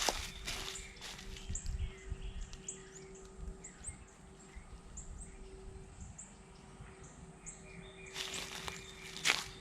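Birds chirping, short high falling notes repeated every half second or so, over a faint steady hum. Near the end a rustling shuffle leads into a sharp knock.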